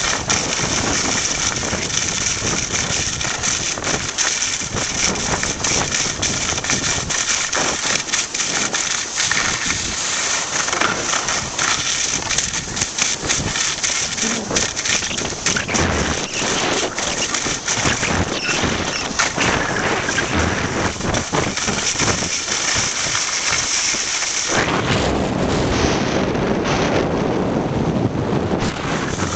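Wind rushing over the microphone and skis scraping and chattering on snow during a fast downhill run on skis. About five seconds before the end the high hiss drops and a lower rush takes over.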